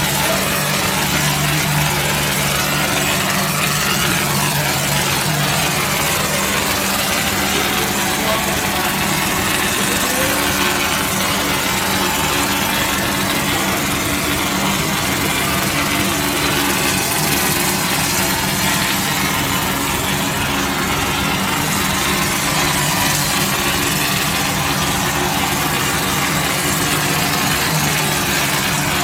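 Wall-plastering machine running steadily, a continuous mechanical hum with no change in pitch.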